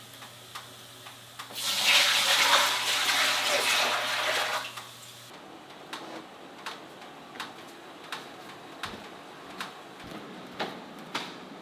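Water running or pouring for about three seconds, then stopping, followed by scattered drips and light taps.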